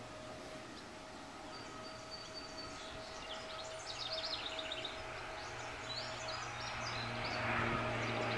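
Songbirds chirping in short trills over a steady drone. The drone swells toward the end as a propeller aircraft comes nearer.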